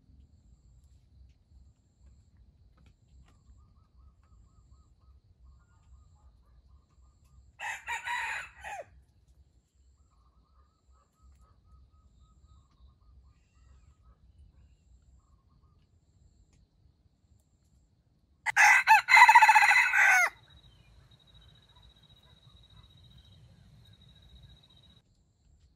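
Junglefowl rooster crowing twice: a fainter, shorter crow about eight seconds in, then a louder, longer crow around nineteen seconds in.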